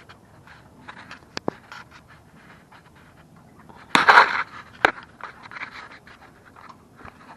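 Scattered clicks and rustling from someone moving about, with a short loud scrape about four seconds in and a sharp click just after it.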